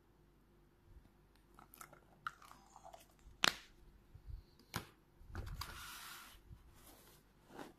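Small hard plastic toy figurines clicking and knocking as they are handled and put down onto a pile of others, with one sharp click loudest about three and a half seconds in and a brief rustle about two seconds later.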